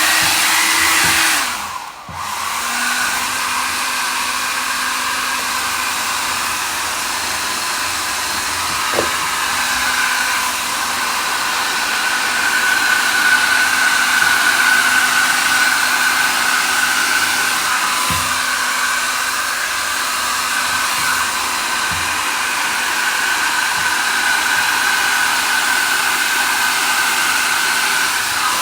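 Mi Ionic Hair Dryer H300 running on its medium heat setting: a steady rush of air with a motor whine. The sound dips briefly about two seconds in, then runs steadily.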